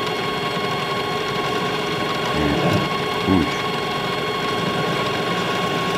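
Metal lathe running steadily, its gear train giving a constant mechanical whir with a steady tone, while an angled chamfer tool is fed against the edge of the spinning workpiece.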